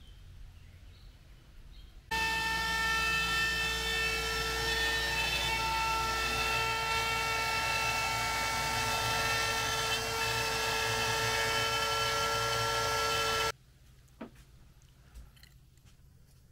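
CNC router spindle cutting plywood: a loud, steady high whine of several tones over a dense hiss. It starts abruptly about two seconds in and cuts off abruptly about eleven seconds later.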